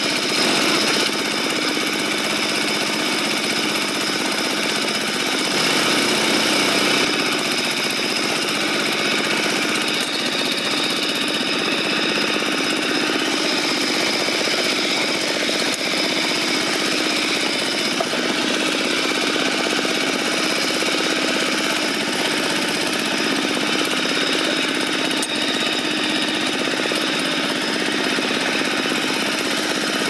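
Single-cylinder diesel engine of a two-wheel walking tractor running steadily while the tractor drives along.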